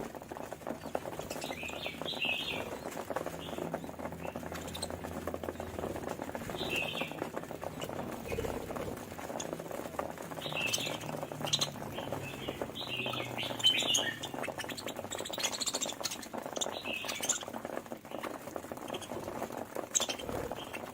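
Budgerigars chirping and chattering in short bursts every second or two, with many light ticks and scratches in between.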